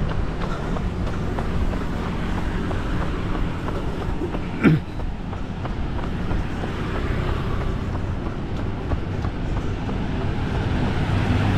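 Steady rumble of road traffic and wind while running along a city road, with faint light footfalls. A short pitched call rises and falls about halfway through.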